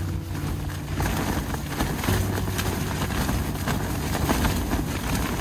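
Storm wind battering a backpacking tent, the nylon walls flapping and snapping rapidly under the gusts, with wind rumbling on the microphone.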